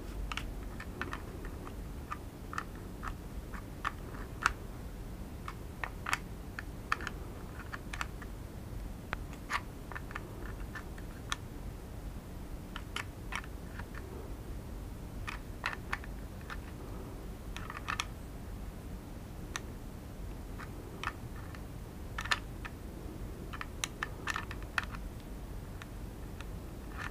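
Irregular light metallic clicks and taps of a small open-end wrench working on an antenna connector nut as it is tightened, in small clusters with short gaps between.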